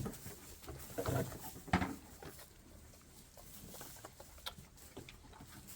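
Bottle-fed lambs moving about in a pen: scattered light knocks and rustles, the loudest two bumps coming between one and two seconds in.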